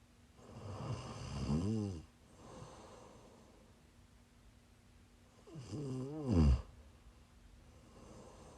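A woman snoring in her sleep while sick: two loud snores about five seconds apart, each a buzzing rattle that rises in pitch and then drops, with softer breaths between them.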